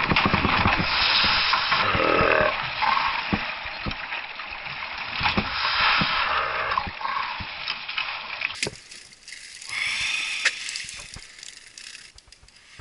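Water splashing and churning against the side of a canoe, with sharp knocks on the hull. About two-thirds of the way through it gives way to much quieter water sounds, with one brief rush of splashing a little later.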